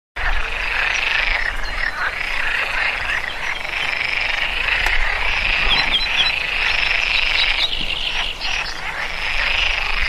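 A night chorus of many frogs calling at once in a dense, continuous din, with a few short high chirps about six seconds in.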